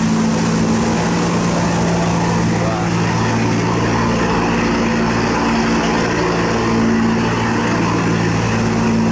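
Engine of a wooden cargo boat running steadily with a constant low hum as the boat passes close by through a sluice gate, over the rushing and churning of its wake and the current through the gate.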